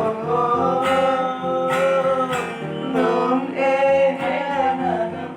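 A child's singing voice holding long, wavering notes between lyric lines, over instrumental accompaniment.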